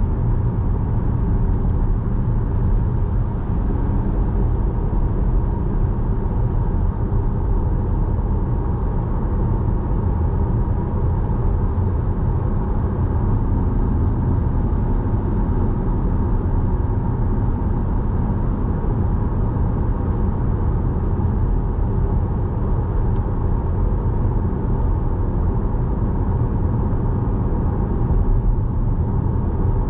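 Steady low rumble of a car's tyres and engine at cruising speed on a wet road, heard from inside the cabin.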